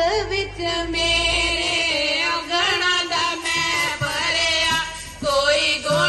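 Group singing of a Punjabi Sikh devotional hymn, several voices carrying a melody together.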